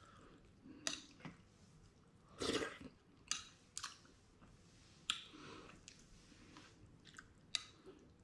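Eating a bowl of rice porridge: a metal spoon clinking and scraping against a glass bowl several times, with faint chewing in between. The loudest moment is a longer noise about two and a half seconds in.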